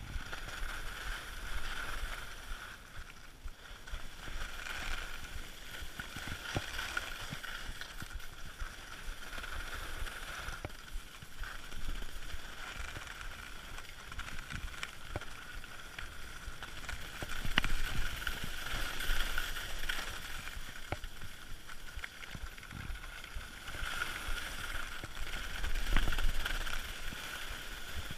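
Skis sliding and scraping over packed, groomed snow in a steady rush, with scattered clicks and knocks; it swells louder twice, about two-thirds of the way through and near the end.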